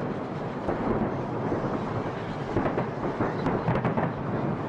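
Fireworks display: aerial shells bursting in a dense, unbroken run, many bangs a second overlapping with crackle and rumble.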